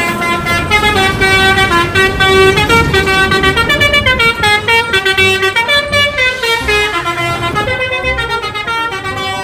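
Bus 'telolet' melody horn playing a tune: loud horn tones stepping up and down in pitch, note after note without a break, over a low rumble.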